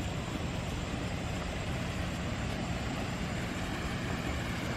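Steady rush of falling water from a small man-made waterfall.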